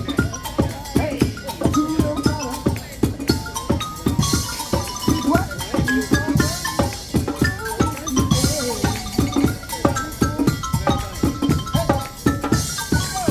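Live percussion music from drums built out of recycled materials, played on a fast, steady beat with a pitched melody over it. Washes of bright, cymbal-like hiss come in several times.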